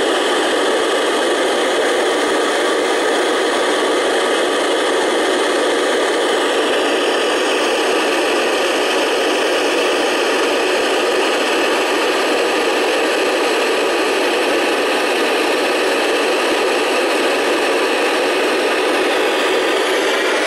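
Steady FM static hiss from a 2 m amateur radio transceiver tuned to the ISS downlink on 145.800 MHz FM, with a few faint whistles that slide in pitch. This is the open receiver picking up no usable signal from the space station.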